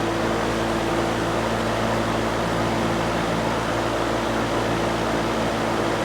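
Vintage General Electric W-26 five-blade box fan running steadily on medium speed: an even rush of air with a low steady hum, not that loud. The fan is warmed up, so its medium speed is running normally.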